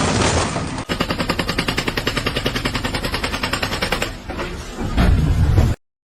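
A short burst of noise, then a rapid, even run of sharp mechanical impacts, about ten a second, for about three seconds, followed by a loud low rumble that cuts off suddenly.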